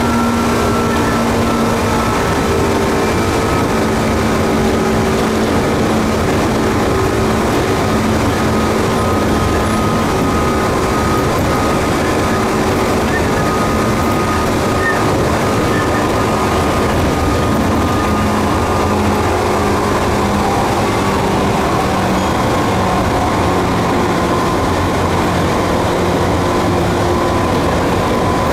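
Tokyu 8500 series electric train running at speed, heard from the driver's cab: a steady rush of wind and wheel-on-rail noise under the whine of its traction motors. The motor whine is several steady tones that fall slowly in pitch over the stretch.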